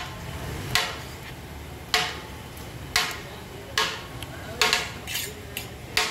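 Flat perforated metal ladle knocking against the rim of a large metal biryani pot while biryani is served out, repeated knocks about once a second, each with a short metallic ring.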